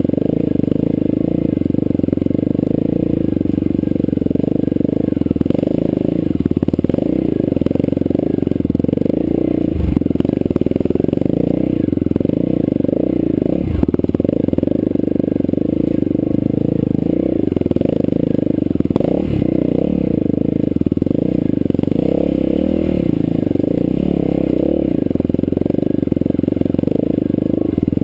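Enduro motorcycle engine running under load up a steep rocky trail, its pitch rising and falling with the throttle. A few sharp knocks come through as the bike jolts over loose rocks.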